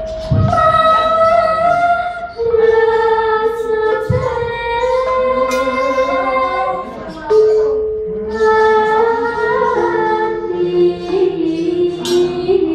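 A female voice singing a Javanese gamelan vocal line in long held notes that step from pitch to pitch with a slight waver. Two low thuds come at the start and about four seconds in.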